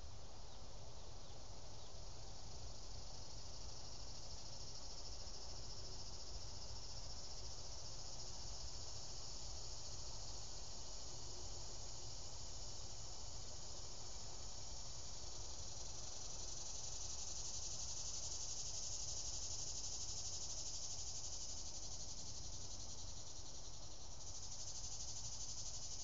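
A steady, high-pitched chorus of insects buzzing outdoors. It grows a little louder in the second half, over a constant low rumble.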